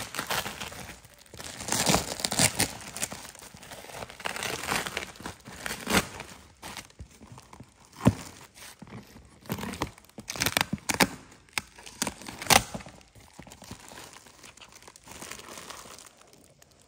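Plastic packing tape and a woven plastic sack being torn and crinkled by hand as a parcel is unwrapped: irregular bursts of rustling and tearing with a few sharp cracks, dying down near the end.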